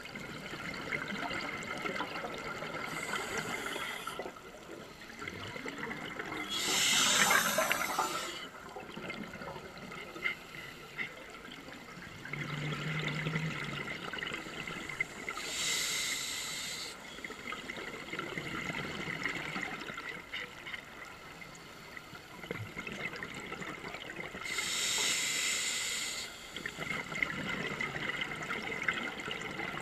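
Scuba diver breathing through a regulator underwater: a steady hiss between breaths, then a loud rush of exhaled bubbles about every nine seconds, three times, the strongest about seven seconds in.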